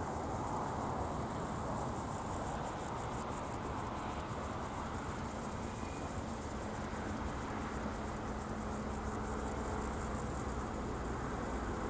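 Insects chirping in rapid, high, rhythmic pulses that swell twice, over a low steady rumble.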